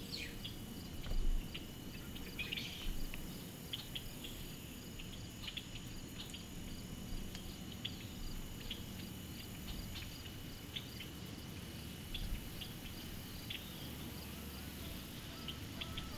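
Outdoor field ambience of insects: a steady high trill with crickets chirping in an even pulse, and scattered short bird chirps over a low rumble. A single low thump about a second in.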